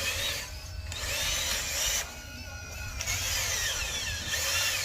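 Small electric motors and gearboxes of a metal RC construction model whining in spurts, their pitch gliding up and down as they speed up and slow down, with short pauses between runs.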